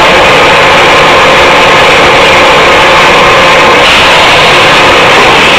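Loud, steady industrial machinery noise from a steel rebar induction heating production line running, with no breaks or distinct impacts.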